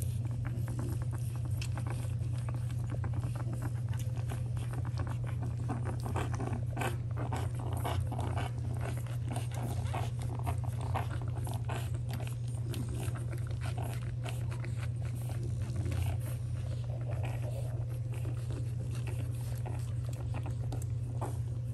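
Week-old French bulldog puppies nursing: quick wet suckling and smacking noises, with the odd small squeak or grunt, over a steady low hum.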